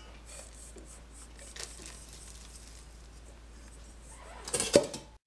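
Spatula scraping chopped hazelnuts out of a stainless steel bowl, the nuts pattering softly into a glass mixing bowl. A louder clatter with a sharp knock comes near the end.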